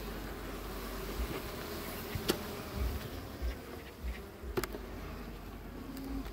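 Honeybees buzzing over an opened hive, a steady hum. Two sharp clicks a couple of seconds apart come from the metal hive tool on the wooden frames, and a few dull low bumps come from handling.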